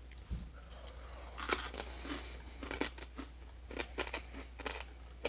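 Intermittent crinkling and crunching of a bag of snack mix (peanuts, corn bites and peas) as it is handled and eaten: short, scattered crackles and clicks.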